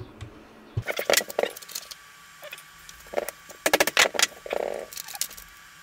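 Light metallic clicks and clinks as a stepper-motor rotor and its loosened magnet pieces are handled and picked at by hand, in irregular short clusters.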